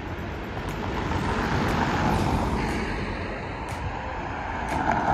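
Street traffic: cars going by, the noise swelling about two seconds in and again near the end.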